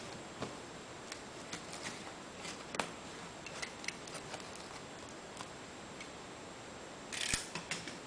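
Scattered small clicks and taps of a boxed model airliner and its packaging being handled, with a short rustle about seven seconds in, over a steady background hiss.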